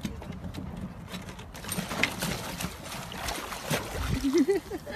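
Water splashing and sloshing as a small dog paddles, with scattered sharp splashes. A short wavering cry sounds near the end.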